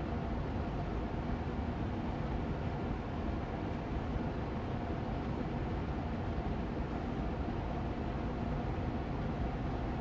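Austin Air Allergy Machine air purifier's fan running on medium speed: a steady rush of air with a low hum and a couple of faint steady tones beneath it.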